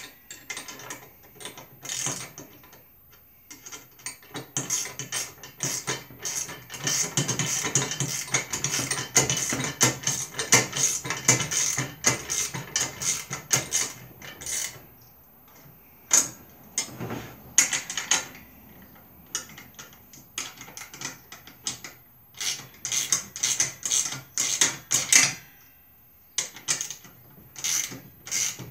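Hand ratchet wrench clicking in quick back-and-forth strokes as a nut is run down on a bolt. It comes in several spells with short pauses, the longest in the first half.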